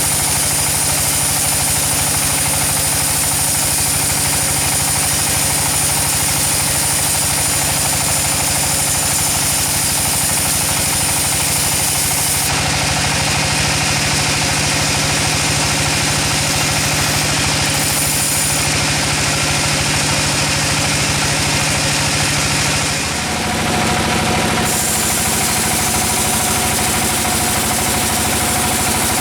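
Sawmill engine running steadily at a constant speed, its tone changing abruptly twice, most clearly about three quarters of the way through.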